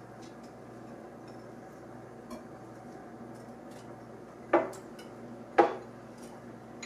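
Bowls and utensils clinking while ingredients are mixed in a bowl: a few faint taps, then two sharp knocks about a second apart, over a faint steady hum.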